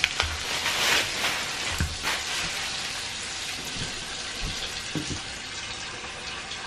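Water running steadily from a tap, with a few soft knocks.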